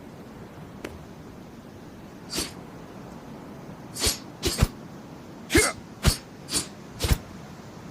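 Kukri machete swung sharply, giving about eight quick swishes, a few of them in close pairs, mostly in the second half.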